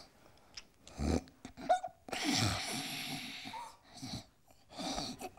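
A person snoring in short snorts, with one longer breathy snore about two seconds in.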